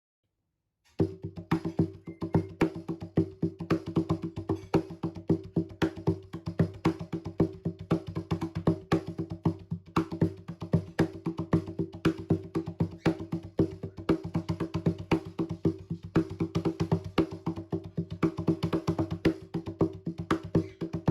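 Cajon being played by hand: a fast, continuous rhythm of sharp wooden slaps over a deep boomy resonance.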